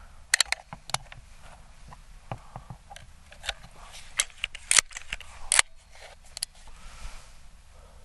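Sharp mechanical clicks and clacks of a Crosman 1322 multi-pump .22 pellet pistol being handled and readied for a shot, its pump lever and bolt worked. There is a string of separate snaps, the loudest a little past halfway through.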